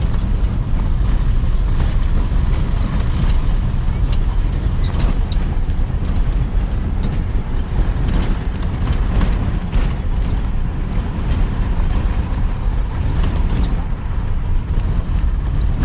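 Steady low rumble with scattered light rattles and clicks, the road noise of riding in a moving vehicle.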